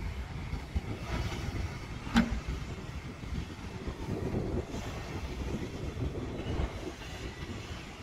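Diesel engine of a Volvo wheeled excavator running steadily as the machine drives, a low rumble. A single sharp knock stands out about two seconds in.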